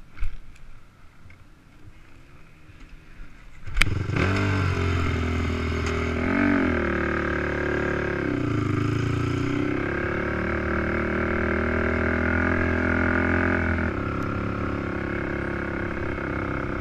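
Quad (ATV) engine starting abruptly about four seconds in, then running with the revs rising and falling as it pulls away, easing back about three seconds before the end. A single knock comes early, before the engine starts.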